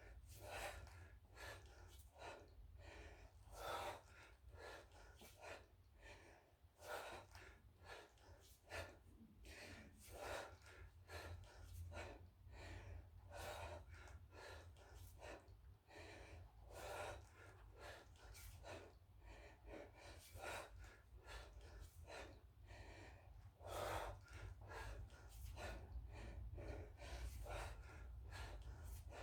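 A man breathing hard in short, forceful exhalations, roughly one or two a second, as he works through a set of kettlebell lifts. A faint low hum runs underneath.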